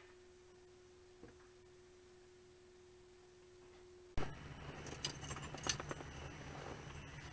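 A faint steady tone with one small click about a second in, then an abrupt cut a little past four seconds to a louder steady low hum of a car idling, with a burst of light metallic clinking and clicks about a second later.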